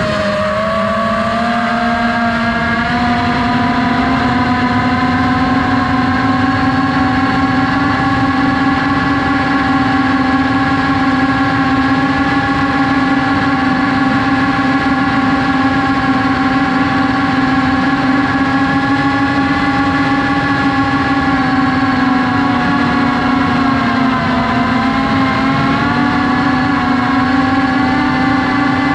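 FPV drone's motors and propellers whining steadily. The pitch dips briefly just after the start and again about three-quarters of the way through, then comes back up.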